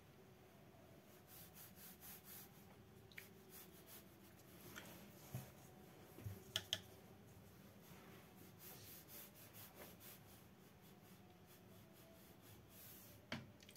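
Faint rubbing of a watercolour brush stroking across paper in short, repeated strokes, with a few sharp clicks, the loudest about six and a half seconds in and again near the end.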